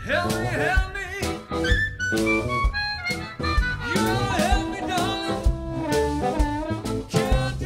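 Live blues band playing: amplified blues harmonica carries the lead with bent, wavering notes over electric bass, electric guitar and a drum kit's steady beat.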